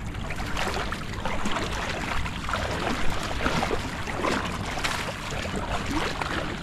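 Shallow water splashing and trickling as a person wades and lifts a wet cast net, water running off the net, then drags it through the water with netted mullet thrashing in it. A sharper splash comes about three seconds in.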